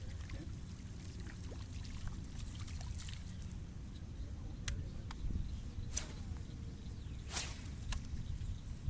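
Water trickling and splashing against a steady low rumble, with several sharp clicks and splashes in the second half.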